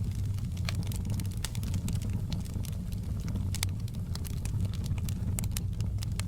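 Wood fire burning in a fireplace: a steady low rumble of the flames with frequent irregular sharp crackles and pops.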